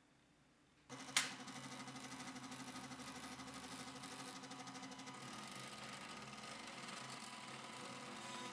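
Stepper motors of a homemade 3D printer built from old CD-ROM drives, moving the print head as it draws a figure inside jello. After a click about a second in, there is a steady whirring buzz with a fast fine pulsing, and its tones shift twice partway through as the moves change.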